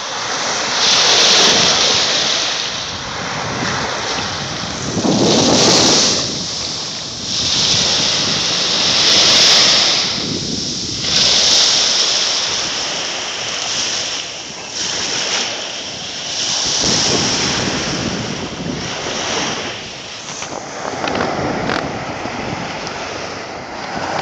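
Small waves breaking and washing up a sandy beach, a steady hiss of surf that swells and fades every few seconds.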